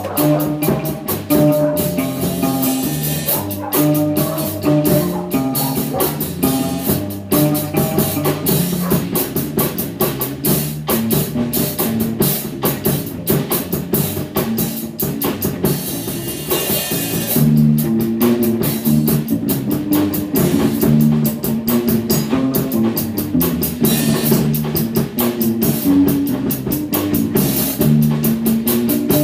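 Live rehearsal of an electric bass guitar and a drum kit playing an instrumental groove together, with a busy drum pattern over a shifting bass line.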